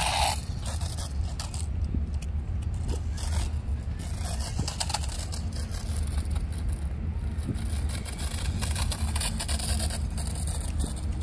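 Remote-control toy motorcycle running across a rubber court, under a steady low rumble of wind on the microphone, with scattered light clicks.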